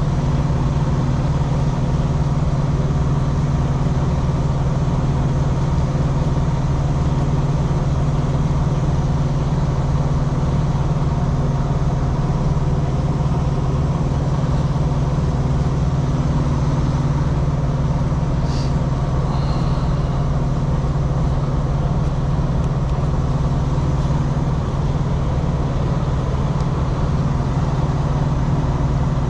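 Truck engine idling steadily, a constant low hum that does not change.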